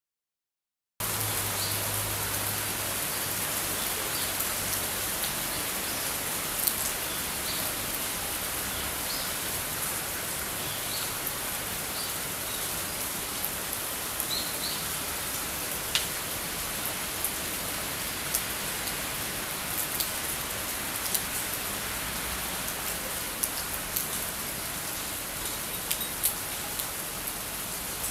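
Steady rain falling, starting about a second in, with scattered sharper taps of single drops landing close by.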